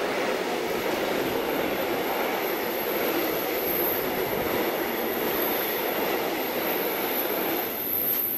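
Freight train of hopper wagons passing close by, a steady rumble and rattle of wheels running over the rails.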